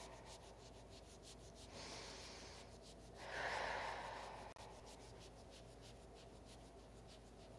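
Fingertips rubbing firmly on skin at the front of the shoulder joint: a faint, quick, rhythmic rubbing. About three seconds in, a louder soft rush of noise lasts a little over a second.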